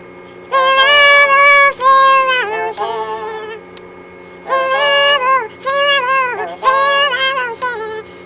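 High-pitched singing in three phrases with no words that can be made out, over a steady low hum.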